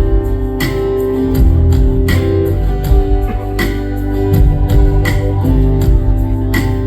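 Live band music: guitar chords over bass and drums, with a steady beat.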